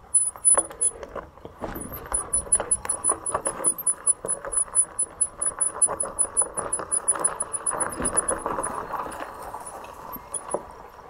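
Loaded e-bike rattling and clattering as it rolls over a bumpy dirt trail, with tyre and gear noise and many irregular knocks, and a fast, regular high-pitched ticking over it.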